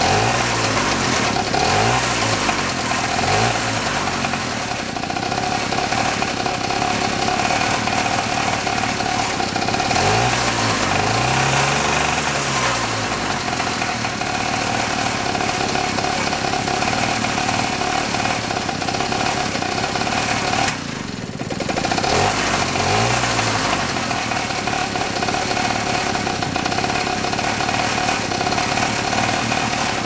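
Small single-cylinder air-cooled engine from a 1942 aircraft auxiliary power unit, running unevenly near idle. It is blipped up in revs and falls back several times: a few quick blips at the start, a longer rise and fall in the middle, and another later. It cannot find a steady idle; the owner wonders whether an anti-fouler in the spark plug hole is starving it of spark.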